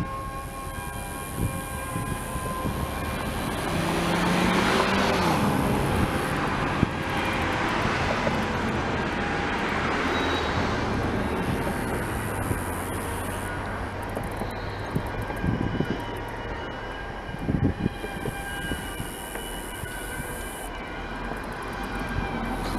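Freight train rolling slowly through a rail yard: a steady low rumble with several thin, steady squealing tones from the wheels, a broad whooshing swell from about four to eleven seconds in, and a couple of knocks later on.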